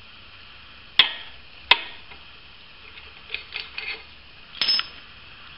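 Sharp metal clicks and knocks as a thread-insert installation tool is worked in an engine-mount bracket: two loud clicks about a second in, a run of lighter ticks, then another knock near the end.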